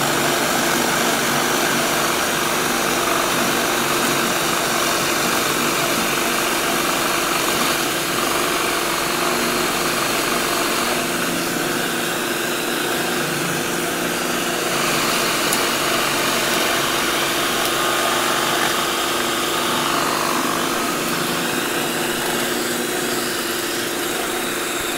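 Drill press boring a 3/4-inch hole in wood, with a shop vacuum running alongside to suck up the chips: a steady, even machine noise with a constant hum.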